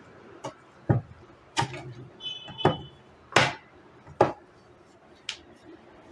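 A series of sharp knocks and clicks, irregularly spaced, with a short high-pitched electronic beep a little over two seconds in.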